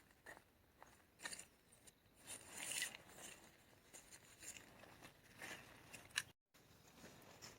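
Faint rustling and scattered light clicks of something being handled, with a longer, louder rustle about two and a half seconds in.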